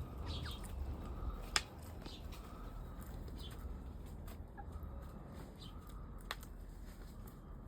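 Pet chickens making a few soft, short clucks, with two sharp clicks over a steady low rumble.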